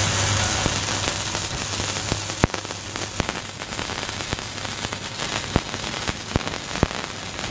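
ESAB HandyArc Mig 200i inverter welder running a gasless, flux-cored MIG arc on steel plate: a steady crackling sizzle, with scattered sharp pops of spatter.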